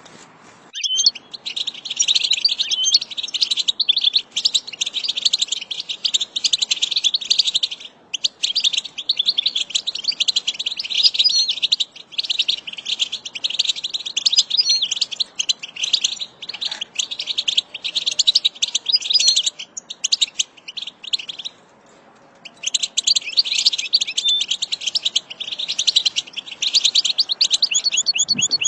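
European goldfinch singing: a fast, continuous twittering song of high, rapid notes that starts about a second in and breaks off briefly about three-quarters of the way through before resuming.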